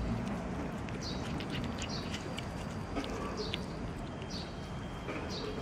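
Cats chewing and smacking on wet food, with small clicks, while short high chirps repeat roughly once a second, like small birds calling.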